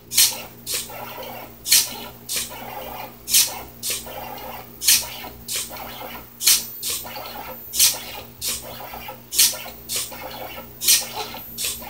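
4xiDraw pen plotter, driven by stepper motors with a micro servo lifting the pen, drawing: a sharp scratchy sound repeats about every one and a half seconds, each followed by a softer one, over a steady low hum.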